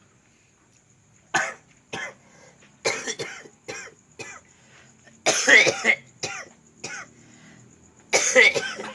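A man with a cough of over two years coughing in a string of short, harsh coughs and throat-clearing hacks. Two longer coughing fits come about five and eight seconds in.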